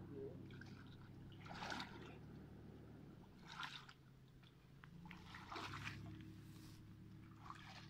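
Faint splashing and dripping of water as a cast net is hauled up out of a muddy pond by hand, in about four short splashes a couple of seconds apart.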